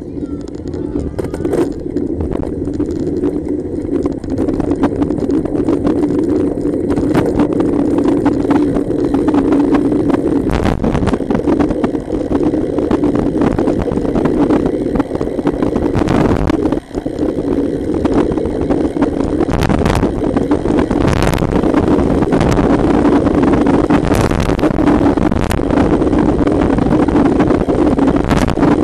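Wind rushing over the microphone of a camera mounted on a moving road bicycle, a steady loud rush with road rumble, broken by scattered knocks and rattles from the bike.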